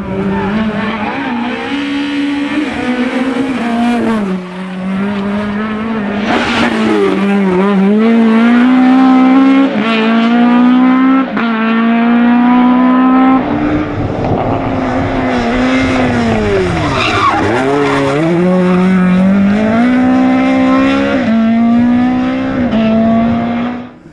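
Toyota Corolla AE86 rally car's 2-litre engine revving hard as the car is driven flat out. The pitch climbs through each gear, drops at the shifts, and swoops down and back up at the lifts and braking.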